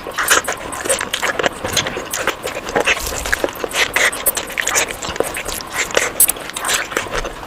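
Close-miked eating sounds: chewing with many quick, irregular wet mouth smacks and clicks.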